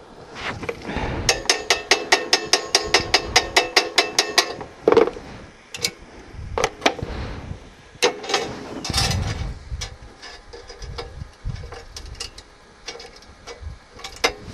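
Rapid metallic tapping at about six strikes a second for around three seconds, each strike ringing, as the steel rod pieces of a practice weld are worked by hand. This is followed by scattered knocks and scrapes of metal on metal.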